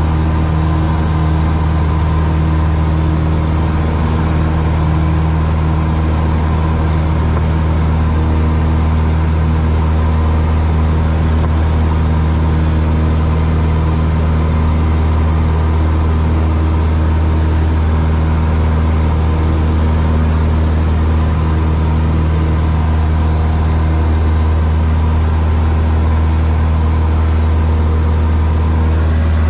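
Steady drone of a single-engine light aircraft's piston engine and propeller, heard from inside the cockpit while climbing after takeoff. It is a constant low hum with several steady overtones, unbroken throughout.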